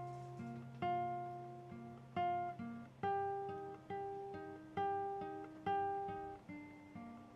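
Background music: a plucked acoustic guitar playing a slow, gentle melody, each note ringing and fading before the next.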